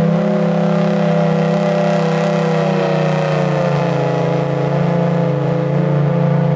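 Federal Signal Thunderbolt outdoor warning siren sounding a steady tone while its horn rotates, over a steady low drone. The pitch wavers, sagging a little midway and coming back up: an old, failing siren whose pitch now wavers more than before.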